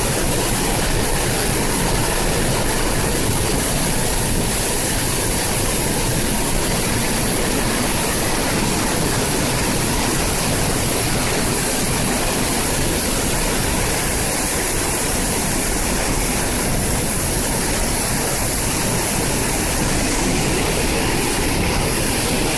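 Waterfall in flood from typhoon rain, a loud, steady rush of falling water with no let-up.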